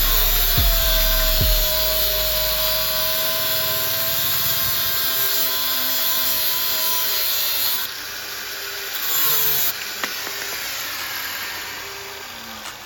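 Handheld electric power tool whirring steadily for about eight seconds, its high whine sagging slightly in pitch, then a second, shorter run about a second later.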